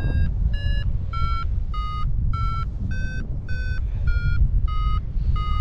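Paragliding variometer beeping in a steady run, about ten short beeps roughly 0.6 s apart, each a little higher or lower in pitch than the last: the climb tone that signals rising air. Under it, a loud low rush of wind on the microphone.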